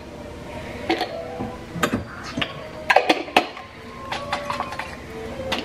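A glass jar being knocked against a slow cooker to empty it: a few sharp clinks and knocks, spread out with gaps between them.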